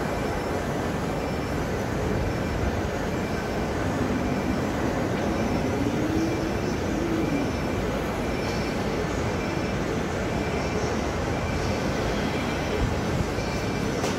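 Steady engine and road rumble heard from inside a moving vehicle, with a faint engine note that rises and then falls about four to seven seconds in.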